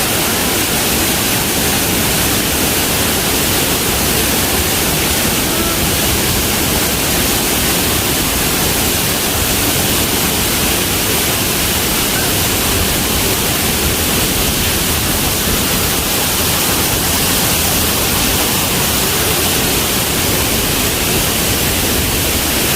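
Steady, loud rush of a large man-made waterfall, water pouring down in a constant roar with no breaks.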